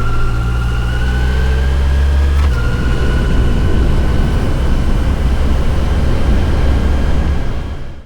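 Yamaha FJR1300's inline-four engine running under way with wind and road noise. Its whine climbs slowly, then changes about two and a half seconds in, as at a gear change. The sound fades out at the very end.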